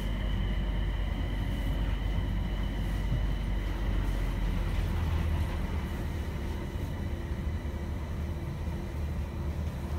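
Running sound inside a JR East E721-1000 series electric train, its Mitsubishi IGBT VVVF inverter and traction motors humming over a steady rumble from the running gear. A high steady whine fades out about halfway through.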